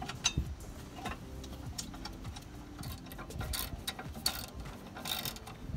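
Ratchet wrench clicking in short runs as the 17 mm caliper bracket bolts are run in on a car's rear disc brake, with light metal clinks of tool on bracket.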